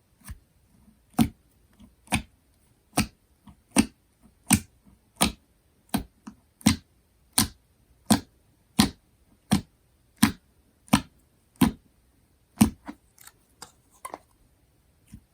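Hands pressing and squishing a jiggly slime, making sharp clicking pops at a steady pace of a little more than one a second, with a quicker run of fainter pops near the end.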